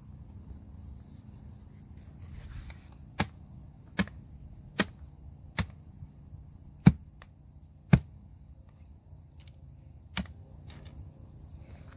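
A knife chopping cassava roots into chunks: about seven sharp chops, the first four evenly spaced under a second apart, the loudest in the middle.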